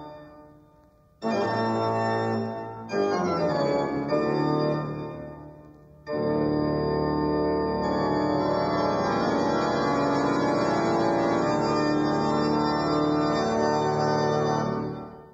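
Organ playing slow, held chords in a haunted-house style. A chord comes in about a second in and another near three seconds. A long chord begins about six seconds in and is held until it dies away near the end.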